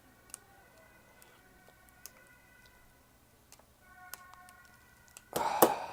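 A few faint, sparse clicks of small plastic connector parts being handled, over a faint steady high whine. A loud, brief rustling noise near the end.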